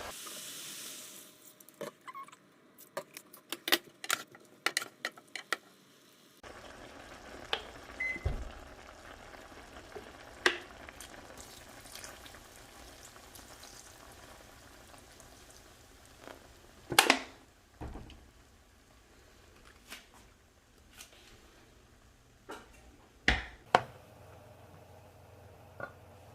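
Chicken cooking in oil in a pan, a low sizzle and bubbling, with sharp clacks and knocks of a utensil against the pan; a quick run of clicks in the first few seconds, and the two loudest knocks in the second half.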